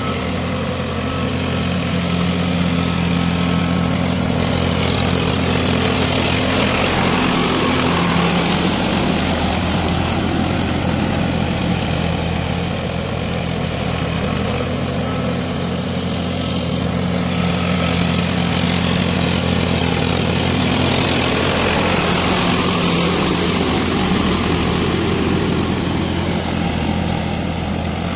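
Tractor diesel engine running steadily under load while pulling a rotavator through wet paddy mud, with the blades churning mud and water.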